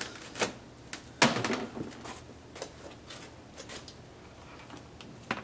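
A few sharp clicks and knocks from small parts being handled and set down, the loudest about a second in.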